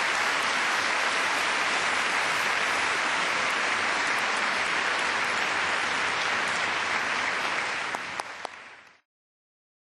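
Large audience applauding steadily, fading out about nine seconds in.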